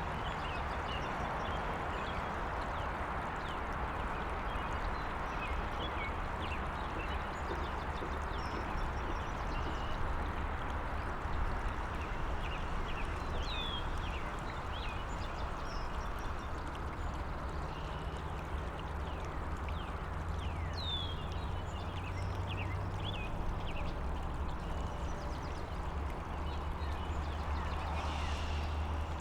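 Small stream flowing steadily, with short bird chirps scattered throughout and a low, steady hum of distant highway traffic underneath.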